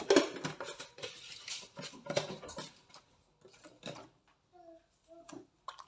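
Whole bananas being shifted by hand inside an aluminium pot: a quick run of small knocks and scrapes of fruit against the metal, thinning out after about three seconds.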